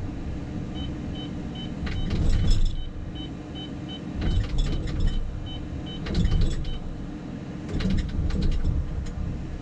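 Cat 330 excavator's diesel engine running with its hydraulics working, heard inside the cab, with bursts of clatter. For about four seconds in the first half, a rapid string of short high electronic beeps sounds.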